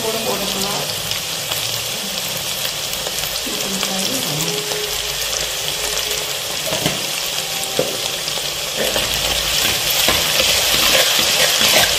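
Chopped onions sizzling in hot oil in a clay pot, stirred with a steel spoon as they sauté. The sizzle is a steady hiss that grows louder near the end as they are stirred, with a couple of light clicks partway through.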